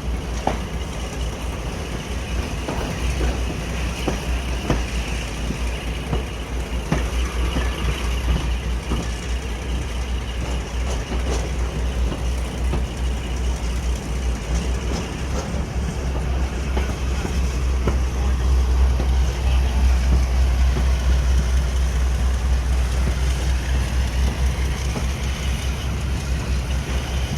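Diesel locomotive engine running with a deep, steady throb that grows a little louder about two-thirds of the way through, with a few sharp clicks and knocks.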